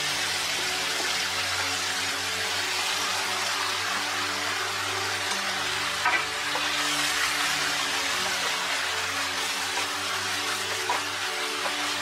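Food sizzling steadily in a hot frying pan as sliced bitter melon and frozen vegetables go in on top of stir-frying pork and tofu, with a short knock about six seconds in.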